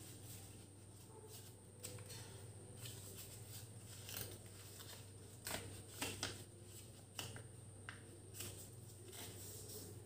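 A sheet of origami paper rustling and crackling faintly as hands fold and crease it, in a handful of short, irregular crackles over a low steady hum.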